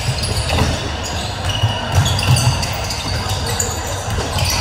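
A basketball being bounced on a court during a game, with short high-pitched sneaker squeaks and voices in the background.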